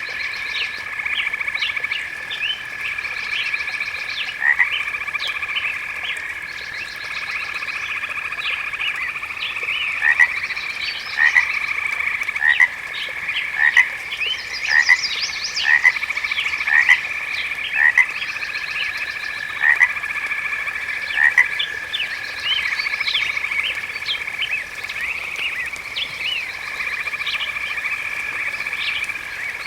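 Chorus of frogs: a steady trilling drone under many short, rising calls, with a run of louder calls about once a second in the middle.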